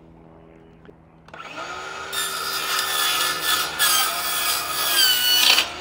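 Circular saw spinning up about a second in and cutting through a foam-core cutoff panel for about three and a half seconds. Its whine sags in pitch under load, and it stops just before the end.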